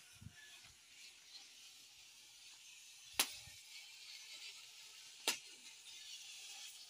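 Two sharp clicks about two seconds apart over a steady high hiss.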